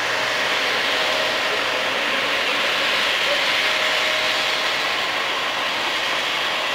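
Embraer 175 airliner's twin GE CF34-8E turbofan engines running at taxi power as it taxis, a steady rushing jet noise with a faint steady tone.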